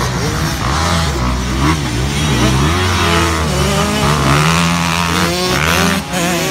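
Several motocross dirt bike engines revving, their pitch rising and falling as throttles open and close, with the sounds of more than one bike overlapping.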